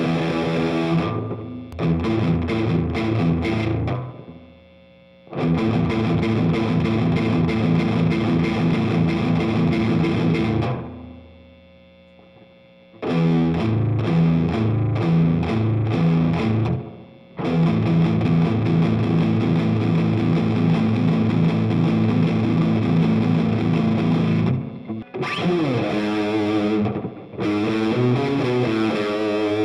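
Stratocaster-style electric guitar playing fast alternate-picked single-note exercise runs, with short pauses between phrases.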